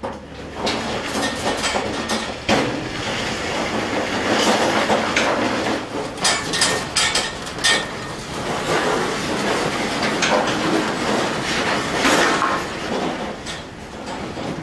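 Folding metal deck of an Edwards livestock trailer being swung up by hand: the checker-plate panel and its frame clanking and rattling, with a run of sharp metal knocks about halfway through.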